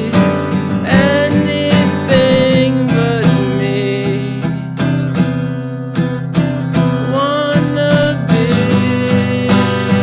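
A man singing with his own strummed acoustic guitar. The voice comes in phrases, with a short break around the middle, while the strumming keeps going.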